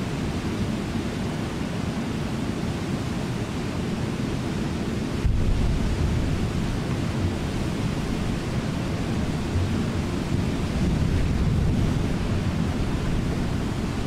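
Steady rushing of Brooks Falls and the river rapids below it. About five seconds in, a deeper low rumble grows stronger and stays.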